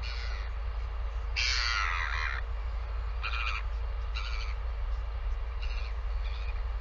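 A series of short, harsh bird calls, about six of them, the loudest and longest about one and a half seconds in. Under them runs a steady low rumble.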